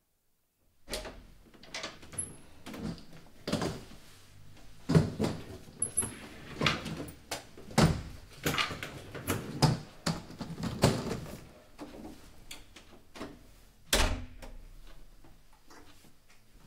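A door being handled in a small hallway: a run of knocks, clicks and clatters begins about a second in and goes on irregularly, with the sharpest knock about fourteen seconds in.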